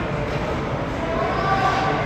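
Ice hockey arena ambience during play: a steady wash of rink and crowd noise, with voices calling out in the second half.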